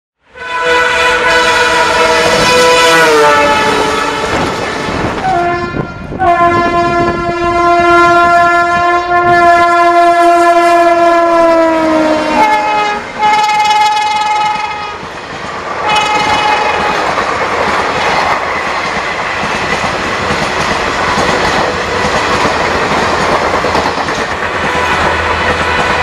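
Train horns from twin WDM 3D diesel locomotives blowing repeatedly: several multi-tone blasts, the longest about six seconds, each sagging in pitch as it ends. About two-thirds of the way through, the horns give way to the steady rumble and clickety-clack of a train running past.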